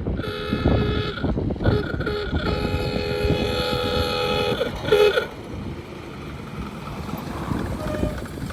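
1929 Ford Model A roadster driving at speed, with wind buffeting and road rumble. A steady high whine runs over it, breaks off briefly twice, and stops about five seconds in, leaving a quieter rumble.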